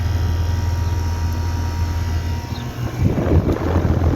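A 3-ton Goodman GSX14 air conditioner condensing unit with a Copeland scroll compressor running just after startup: a loud steady low hum, with a faint higher whine that fades out a little before three seconds in, then a rushing noise joins from about three seconds in.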